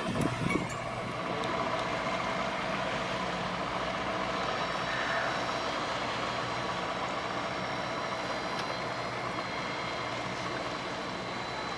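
Steady drone of the Coast Guard tender's engine as the boat motors away along the canal, with a few low bumps in the first second.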